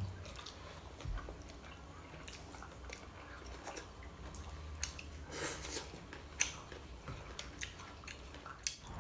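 Quiet biting and chewing of food, with scattered small crunches and clicks.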